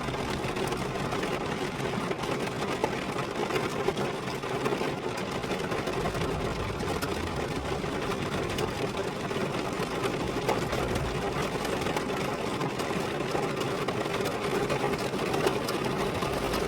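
Rain falling on a car: a dense, steady patter of many small drop ticks over a continuous hiss.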